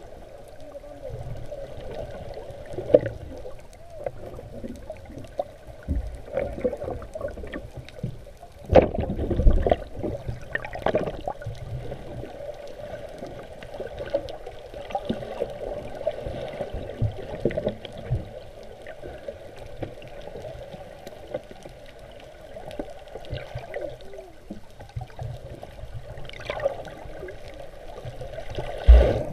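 Muffled underwater ambience: water rushing and bubbling around a submerged microphone, with scattered knocks and louder thumps about nine seconds in and again near the end.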